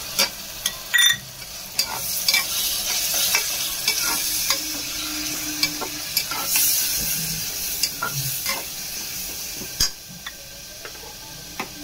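Spiced onion-tomato masala sizzling in hot oil in an aluminium pressure cooker while a spoon stirs it, with sharp clicks and scrapes as the spoon knocks against the pot, most of them in the first two seconds. The masala is being fried down (bhuna) with freshly added ground spices.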